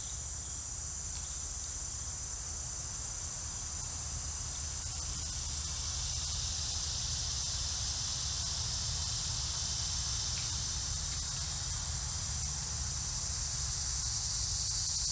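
Chorus of insects in the summer woods: a continuous, steady, high-pitched shrill buzz, over a low steady rumble.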